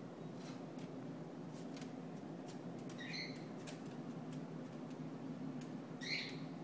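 African grey parrot giving two short high chirps about three seconds apart, with scattered light clicks and taps as it plays, over a steady low hum.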